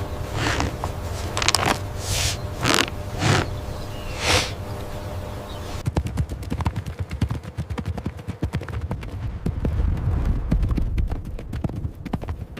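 Horse hooves: a few spaced, heavy strokes at first, then about six seconds in a quick, dense clatter of hoofbeats.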